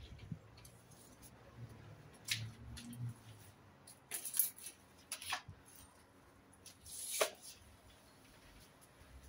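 String mop being worked over wet ceramic floor tiles: a few brief swishing strokes, the loudest about halfway through and again near the end.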